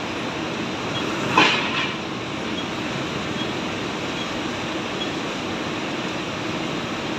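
John Deere tractor's diesel engine running steadily while working a front loader, with a brief louder noisy burst about a second and a half in.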